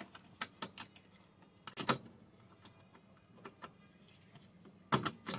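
Ratcheting spanner working a 13 mm nut on the brake master cylinder mounting: irregular small metallic clicks, with a louder cluster about two seconds in and another near the end.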